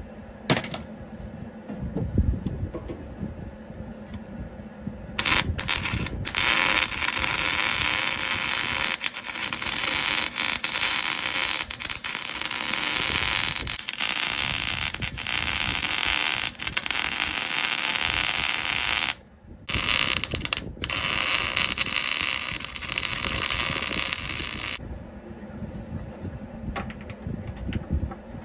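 Arc welding a steel repair plate onto a baler's broken front plate: a steady crackling hiss that starts about five seconds in, breaks off briefly, and stops a few seconds before the end.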